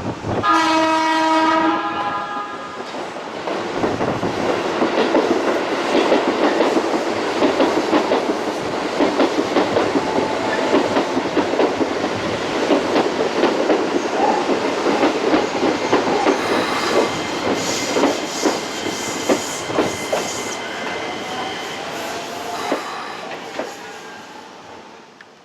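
A train horn sounds briefly at the start, then an electric commuter train runs by with a steady rumble and a clickety-clack of wheels over rail joints. A few high whining tones come in during the second half, and the sound fades away near the end.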